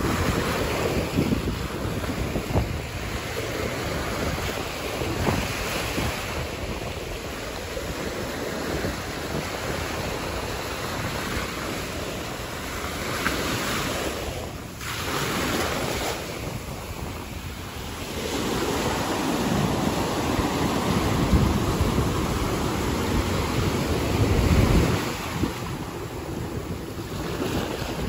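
Small ocean waves washing up a sandy beach, a continuous hiss of surf and foam that swells and ebbs, louder in the second half. Wind buffets the microphone with low rumbles.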